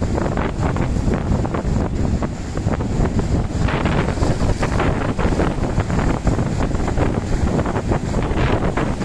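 Strong wind buffeting the microphone: a continuous low rumble with crackle, growing harsher from about four seconds in. Breaking sea waves sit beneath it.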